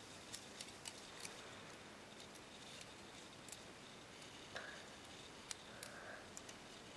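Faint, sharp clicks of plastic Lego pieces being handled and shifted against each other, a quick run of them in the first second or so and a few more scattered through the rest, over a low hiss.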